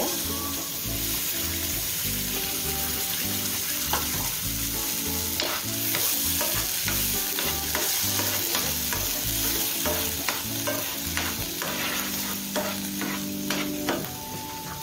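Beetroot purée sizzling in hot butter and wheat flour in a non-stick frying pan, with a steady hiss and a spoon repeatedly scraping and stirring it across the pan.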